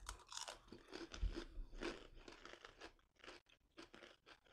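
Two people biting and chewing light, airy puffed rice-flour crackers, a run of crisp, irregular crunches close to the microphone.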